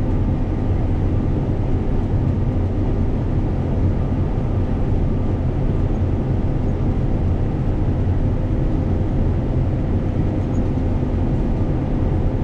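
Combine harvester running steadily while cutting soybeans, heard from inside the cab: an even, unbroken engine and machinery drone with a steady low hum.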